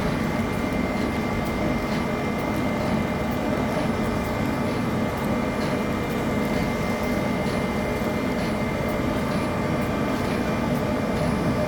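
Ice cream plant machinery running steadily: a constant mechanical hum with several held whining tones over it.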